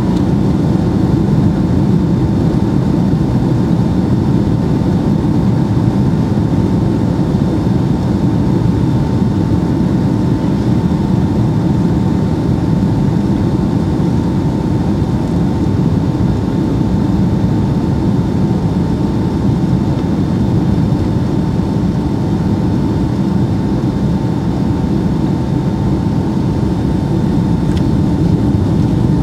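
Steady cabin roar inside a Boeing 757-200 on approach with flaps extended, heard from a window seat by the wing: engine and airflow noise with a faint steady whine over it.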